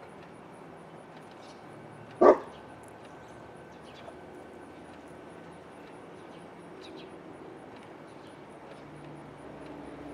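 A single loud dog bark about two seconds in, over a faint steady background with a few faint small-bird chirps.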